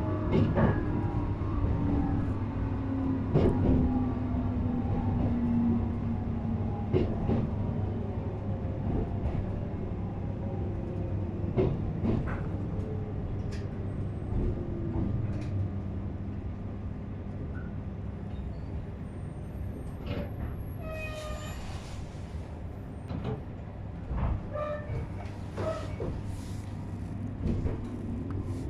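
JR East 719 series electric train running, heard from inside the car: its motor whine falls slowly in pitch as it brakes, over a steady rumble with scattered clicks from the wheels and rail joints. About two-thirds through, a brief high squeal comes as it draws to a stop, and just at the end the whine starts to rise again as it pulls away.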